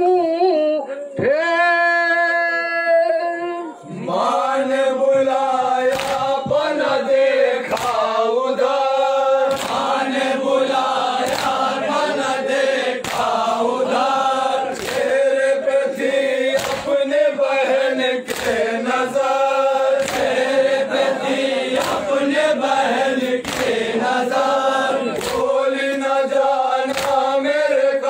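Men chanting a noha, a Shia mourning lament, in unison: one lead voice holds a long note, then the group comes in about four seconds in. From about six seconds in, hands beating on chests in matam strike a steady beat about every second and a half to two seconds.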